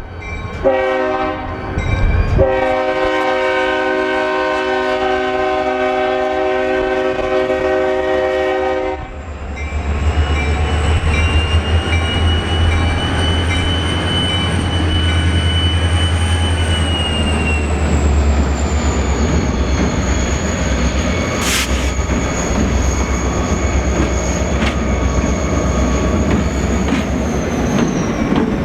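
A diesel locomotive's air horn sounds a chord, breaking briefly twice in the first couple of seconds and then holding a long blast. After the horn stops, the train rolls by with a deep engine rumble and a thin, high wheel squeal that drifts slowly in pitch, plus one sharp click.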